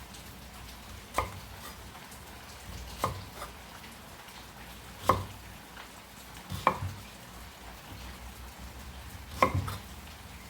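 Knife cutting raw breadfruit into small cubes: single sharp knocks of the blade reaching the board about every two seconds, a few of them doubled.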